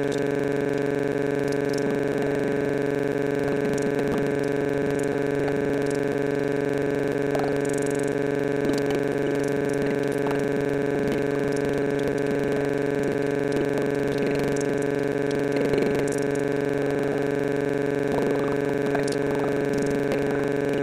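A steady electronic drone: a chord of several sustained tones held at one pitch and one loudness throughout, with only faint traces of other sound beneath it.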